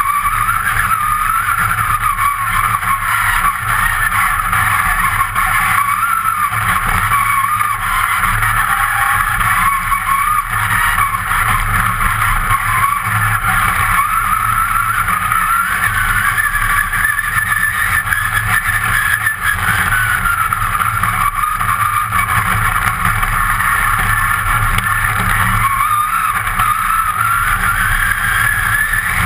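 Rally car engine heard from inside the stripped, caged cabin, running hard at high revs. Its pitch rises and falls with throttle and gear changes over a steady rush of tyre and gravel noise.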